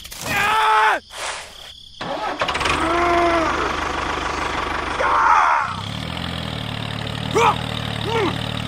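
A small engine starting and then idling steadily, with short high calls sounding over it.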